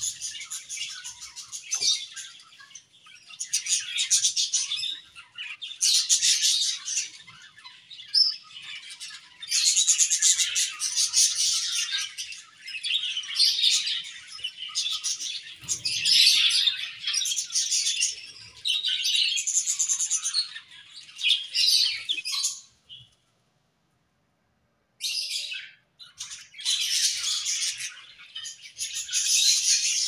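A flock of budgerigars chirping and warbling together, a dense, busy chatter in clumps with short pauses. Near the end the sound cuts out completely for about two seconds, then the chatter resumes.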